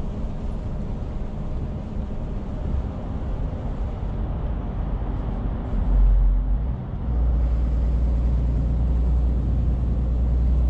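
Scania truck heard from inside the cab while driving: steady engine and road noise. About six seconds in a deep low rumble swells, and from about seven seconds it stays louder and steady.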